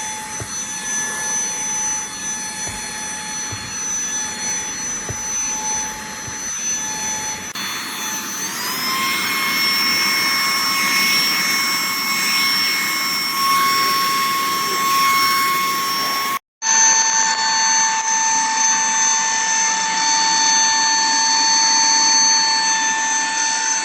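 botatio 26000Pa cordless handheld vacuum cleaner running with a steady high whine. About eight seconds in the motor speeds up and the whine glides higher. After a brief cut-out partway through, it runs on steadily again.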